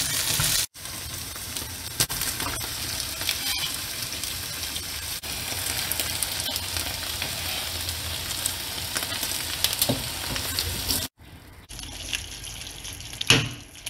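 Minced meat and sauce sizzling in a frying pan, stirred with a wooden spatula that scrapes and clicks against the pan. The sizzle breaks off abruptly twice and is quieter for the last couple of seconds, which end in a loud knock.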